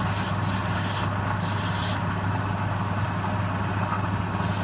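Wood lathe running with a steady low hum, with hissing that comes and goes over it.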